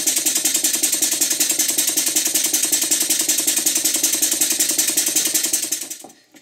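Model Mary beam engine running fast with a rapid, even beat of exhaust strokes and a clunk in the mechanism. The clunk was traced to a loose crank pin and a missing cotter pin in the Watts parallel motion. The running fades out near the end.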